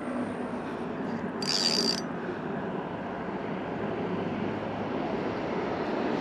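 A cast with a spinning rod: a brief high whir about a second and a half in as line pays out off the reel. Under it runs a steady background rumble.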